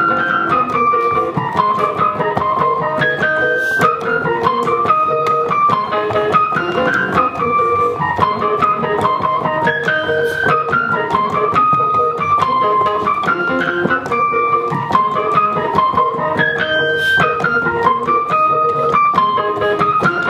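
Electric keyboards playing: a melody of short notes rising and falling in a phrase that repeats about every four seconds, over held lower notes.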